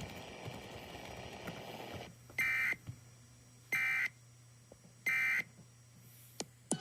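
Three short bursts of Emergency Alert System digital data tones, each under half a second and about 1.3 s apart, the end-of-message code that closes an EAS test. The bursts come over a low hiss, and two quick pitch sweeps are heard near the end.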